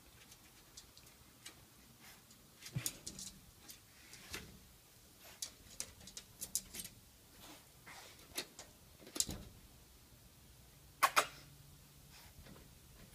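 Bulldog puppy's paws and claws tapping and scratching against a mirrored sliding closet door: scattered light clicks and knocks, the loudest a quick double knock near the end.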